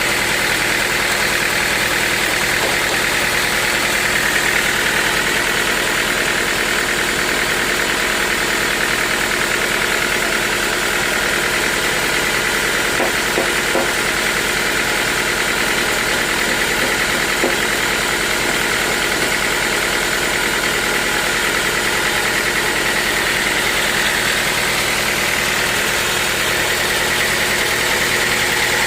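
Sawmill machinery running steadily: a continuous mechanical drone with a steady whine on top, and a few light knocks around the middle.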